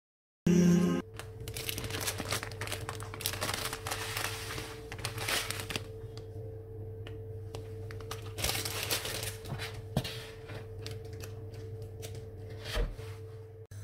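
Plastic packet of dry bulgur crinkling and rustling as it is handled, in stretches with quieter gaps, with a click and a low thump later on. A short, loud pitched sound just before the rustling begins, and a steady low hum underneath.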